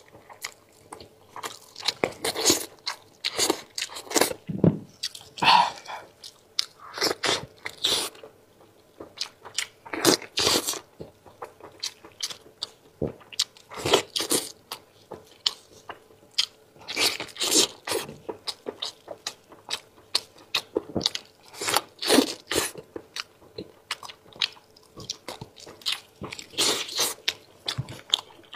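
Close-miked eating sounds of spicy sheep's head: biting, chewing and wet crunching of the meat and skin, in irregular sharp bursts.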